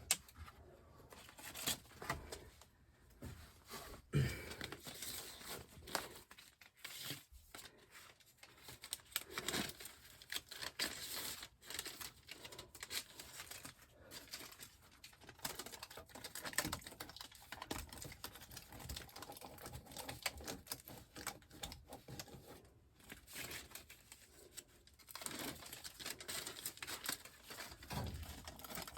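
Tape being torn and pressed down on dryer vent duct joints: irregular tearing, crinkling and tapping sounds of hand work.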